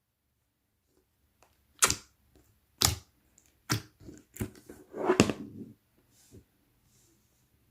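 Translucent slime mixed with pearl beads being pressed and squished by hand, giving sharp clicky pops about once a second, with a denser crackle around five seconds in.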